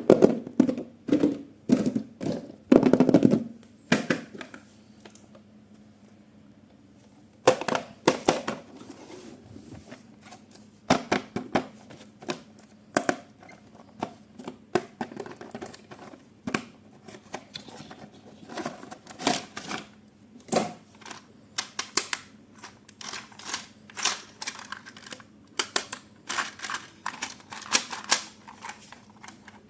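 Irregular clicks, knocks and rustling from hands handling a toy's box, plastic packaging and plastic parts, in a dense cluster at first, a short lull after about four seconds, then scattered clicks.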